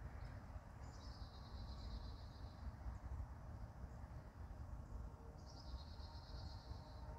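A songbird singing twice, about a second in and again near the end: each song a short downward sweep into a fast, even trill lasting under two seconds, over a low steady rumble.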